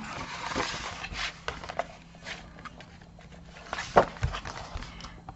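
Paper and card being handled on a craft table during gluing: a soft rustle at first, then scattered light taps, with a sharper click about four seconds in.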